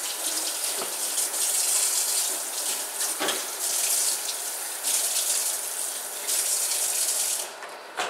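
Kitchen tap running and splashing into a stainless-steel sink, with a couple of knocks against it. The water is shut off near the end.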